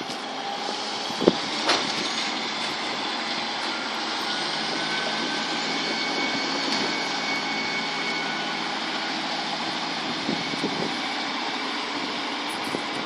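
British Rail Class 153 diesel railcar passing on the main line: a steady rush of engine and wheel-on-rail noise, with a couple of faint clicks early on and some thin held whining tones in the middle.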